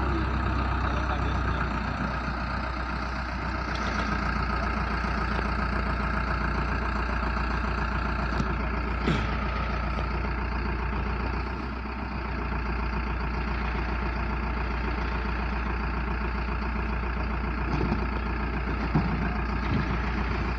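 Mobile crane's diesel engine running steadily while the crane holds a lifted water tank, with a few brief knocks along the way.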